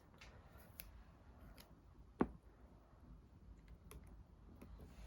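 Small plastic toy blocks being handled, giving scattered light clicks and taps with one sharper click about two seconds in.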